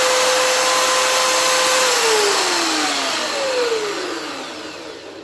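Electric drill running steadily at full speed, then switched off about two seconds in and spinning down, its whine falling in pitch and fading away. The drill is spinning a lock key pin so that serrations can be cut into it with a hacksaw blade.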